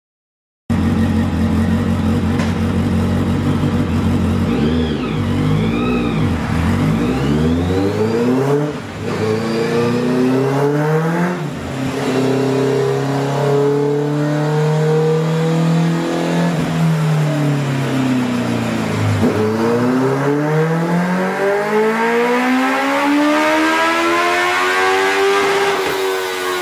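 Honda CBR650F inline-four with a Scorpion aftermarket exhaust, run on a rolling-road dynamometer. After a second of silence it idles, is blipped a few times, and is then run up under load. The engine note climbs, eases back and falls about two-thirds of the way in, then climbs again in a long sweep near the end.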